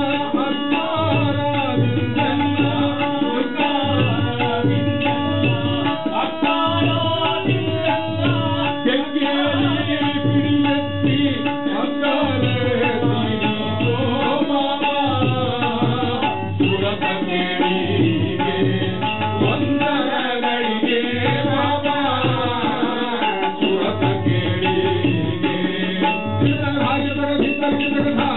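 Live accompaniment music for a Karnataka shadow-puppet play. A hand drum plays a steady rhythm under a held drone and a wavering melody line.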